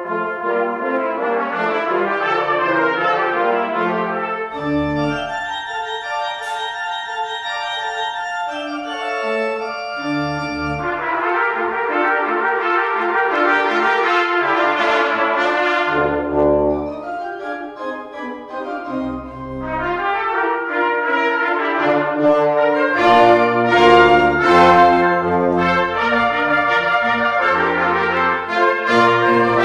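Trumpets and other brass playing classical music together with a pipe organ. The music eases a little past halfway, then builds louder near the end.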